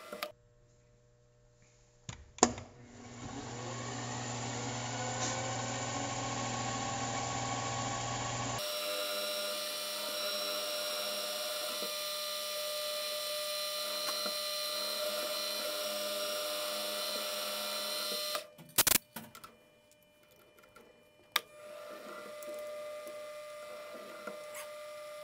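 Milling machine spindle starting with a sharp click, its pitch rising and then running steadily while a drill bores into an aluminium block. The running is broken by a few sharp clicks and a short quiet gap before it resumes.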